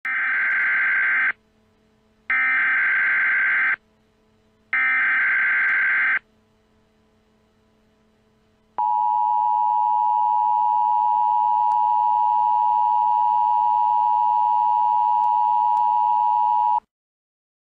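Emergency Alert System broadcast tones: three short bursts of the warbling digital header with brief gaps between them, then the long, steady two-tone attention signal, which cuts off suddenly near the end.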